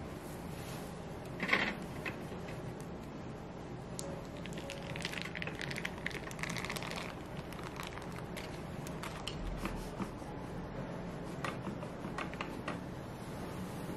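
Sponge cake layers being handled on a metal wire cooling rack in a baking tray: light clicks and knocks of the rack and tray, with a louder knock about a second and a half in and a soft scraping rustle around the middle, over a steady low hum.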